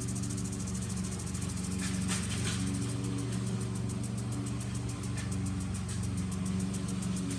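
Lawn mower engine running steadily, with the fast, even ticking of a lawn sprinkler and a few short bursts of spray hiss.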